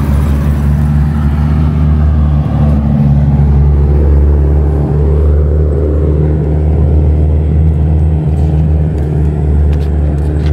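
Honda ADV150 scooter's single-cylinder engine idling steadily, heard close up.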